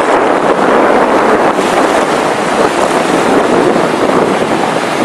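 Strong wind rushing over the microphone with surf breaking and washing up the shore: a steady, loud rush.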